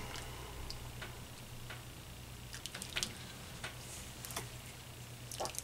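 Red plastic slotted spoon stirring chunky stew in a cast-iron Dutch oven: scattered light clicks and taps of the spoon against the pot and pieces of vegetable. A low steady hum runs underneath.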